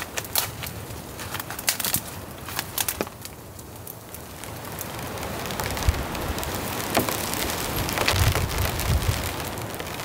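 Campfire of wet beech sticks crackling, with sharp snaps in the first three seconds as sticks are laid on. From about four seconds in, a rushing storm noise builds and overlays the fire.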